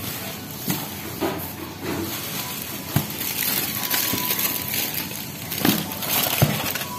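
Plastic bags and a plastic sheet crinkling and rustling as hands handle them, with a few short sharp taps; the loudest come about three seconds in and near the end.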